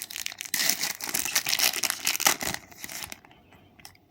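A Match Attax trading-card packet wrapper being torn open and crinkled: dense crackling for about three seconds, then it falls quiet with a few faint ticks.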